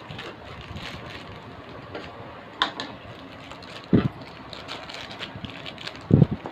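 Crackling and rustling of paper wrapping and packaging as tightly packed bowls are unpacked, with two dull thumps, about four and six seconds in.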